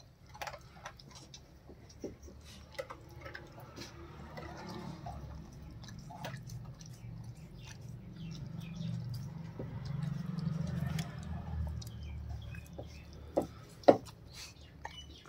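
German Shepherd puppy mouthing and nibbling at an older dog in play: small wet chewing and licking sounds, with a low rumble through the middle and two sharp clicks near the end.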